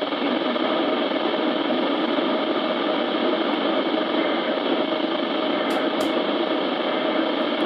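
Steady static hiss from a weather-alert radio receiver between broadcasts, with two faint clicks about six seconds in.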